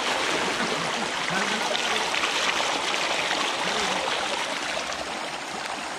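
Steady rush of water pouring through a narrow channel and splashing down onto a mesh fishing net.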